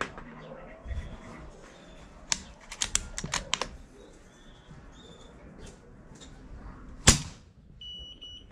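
A run of sharp clicks a couple of seconds in, then a single shot from a P10 PCP air rifle about seven seconds in, the loudest sound. About a second later the chronograph gives a short high electronic beep as it registers the pellet.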